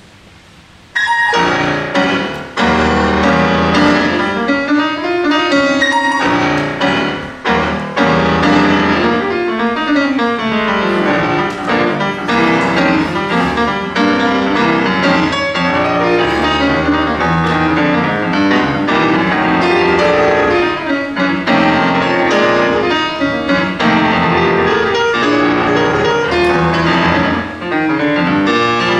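Solo grand piano starting about a second in and playing fast and loud, with quick runs sweeping up and down the keyboard.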